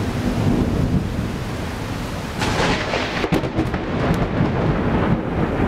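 Heavy rain with rolling thunder: a steady deep rumble, with a sharper, crackling peal breaking in about halfway through.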